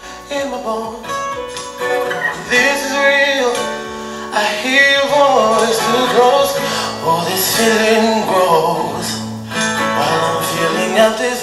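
A song with singing and instruments, played loudly through the built-in 30-watt Dolby Atmos speakers of an Onida 65-inch Google TV.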